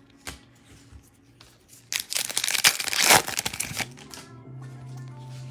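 Wrapper of a Donruss Elite football card pack being torn open and crinkled: about two seconds of loud tearing and crackling a couple of seconds in, after a few small handling clicks.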